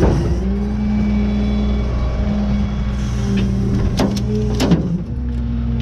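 Rollback tow truck's engine idling steadily. A sharp knock comes right at the start, and a few sharp metallic clinks about four seconds in as the tie-down chain and hook are handled against the steel deck.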